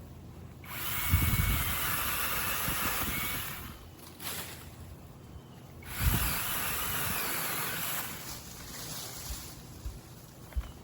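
TaskStar 8-inch cordless mini chainsaw running with no load, triggered in two bursts of about three and two seconds, each starting sharply. A few light clicks follow near the end.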